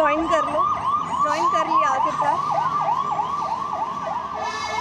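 Emergency vehicle siren on the road, wailing in a fast yelp of rapid rising-and-falling sweeps, about four or five a second. A steady tone joins in near the end.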